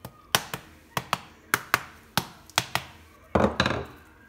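Hammer striking the hard shell of a whole coconut held in the hand, cracking it open: about ten sharp knocks, often in quick pairs, then a longer, louder clatter near the end.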